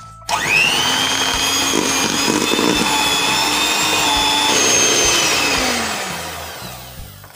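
Electric hand mixer running, its beaters creaming margarine and butter in a plastic bowl. The motor whines up to speed about a third of a second in, runs steadily, then winds down and stops near the end.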